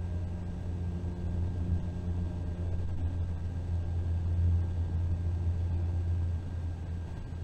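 Bus cruising on an interstate highway, heard from inside the cabin: a steady low rumble of engine and road noise with a faint thin whine above it, easing slightly about six seconds in.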